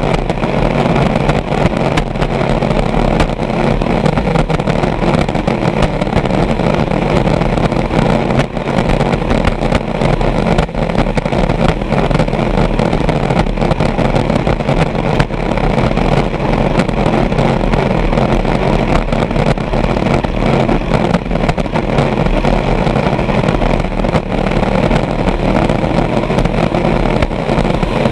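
Vintage racing hydroplane's engine running steadily at racing speed, heard from on board with the rush of wind and water; loud and unbroken throughout.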